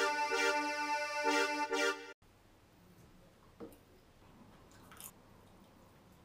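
Keyboard music playing sustained chords, cutting off suddenly about two seconds in. After that a quiet room with a few faint crunches as popcorn is eaten.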